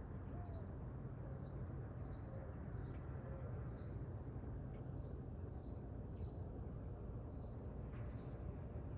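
A small bird repeating a short, high chip note about once a second, over a steady low outdoor rumble.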